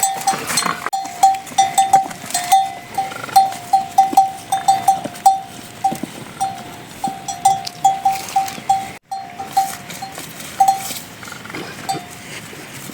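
A livestock bell clinking in an uneven rhythm, two or three strikes a second, as the animal wearing it moves. The strikes thin out over the last few seconds.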